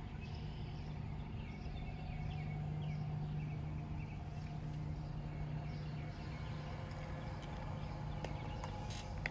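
A car running at low speed as it backs out and moves off along the street, heard as a steady low hum, with birds chirping.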